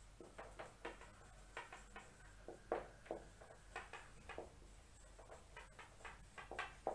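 Marker pen writing on a whiteboard: a quick run of short, faint strokes.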